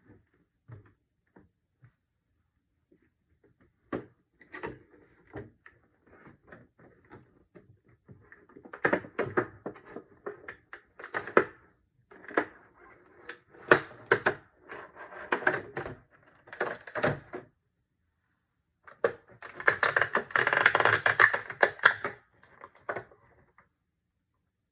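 Toy packaging being handled and opened: irregular clicks, taps and rustling of cardboard and plastic, with a longer, louder stretch of rustling near the end.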